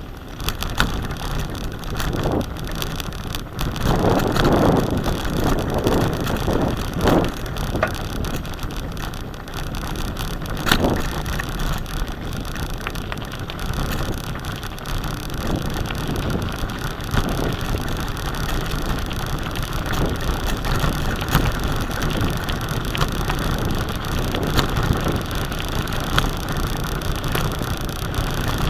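Bicycle riding over a rutted dirt track, heard from a camera mounted on the bike: steady wind rumble on the microphone with frequent rattling clicks from bumps, louder for a few seconds about four seconds in.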